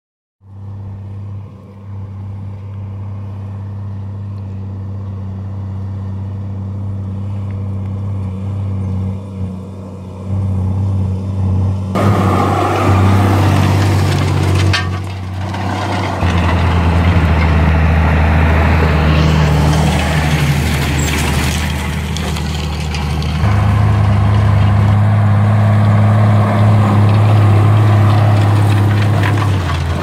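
Case Magnum 7220 tractor's six-cylinder diesel engine running steadily under load while pulling a Lemken Rubin 12 disc harrow. From about twelve seconds in, a loud rushing noise from the harrow's discs cutting and throwing soil joins the engine as the machine passes close, and the engine's deep note drops lower a few seconds later.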